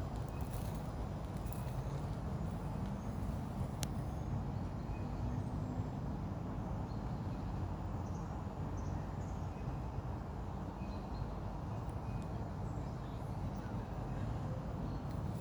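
Outdoor background noise: a steady low rumble with a few faint short high chirps scattered through, and a single faint click about four seconds in.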